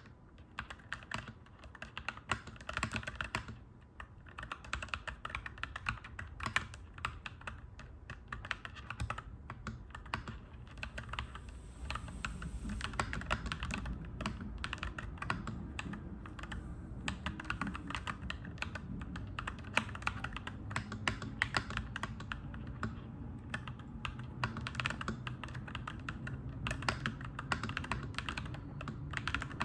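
Fast, continuous typing on a clacky mechanical keyboard, a dense run of irregular key clacks. A low rumble builds underneath from about twelve seconds in.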